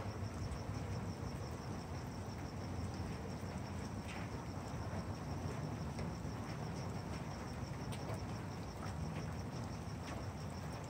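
Crickets chirping at night in a steady, evenly pulsing high trill, over a constant low background hum.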